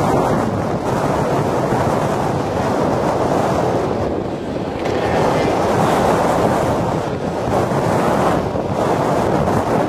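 Strong wind buffeting the microphone, a loud steady rushing, with road-racing motorcycles faintly underneath as they go through a turn. The noise swells from about four seconds in.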